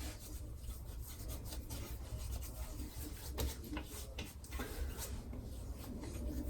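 Hands rubbing a thick aftershave balm between the palms and onto the skin: a continuous soft rubbing with many short brushing strokes.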